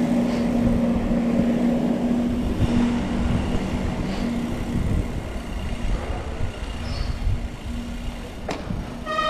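Bicycles rolling slowly over paving, with a continuous rumble of tyre and wind noise and a steady low engine hum that is strongest in the first half. A single sharp click comes near the end.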